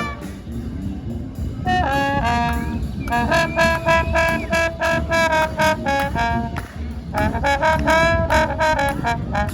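Brass band playing over a steady low beat. The horns drop out for about the first second and a half, then come back in with the tune, pausing briefly once more about seven seconds in.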